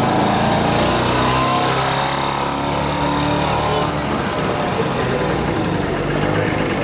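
Small engine of a three-wheeled utility truck running steadily.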